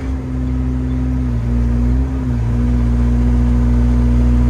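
Excavator's diesel engine running steadily under hydraulic load as the bucket is curled in through the dirt, its pitch dipping briefly near the middle.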